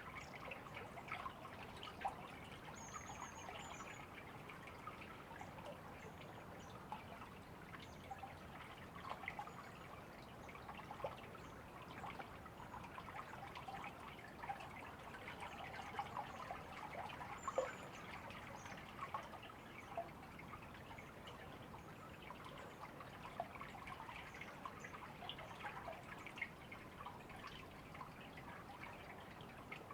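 River water trickling and babbling in a continuous burble, full of small gurgles and splashes. A few faint high chirps come through now and then.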